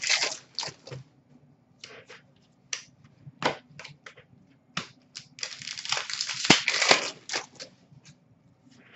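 Trading cards and foil pack wrappers being handled: scattered short crinkles and clicks, with a denser run of crinkling from about five to seven seconds in.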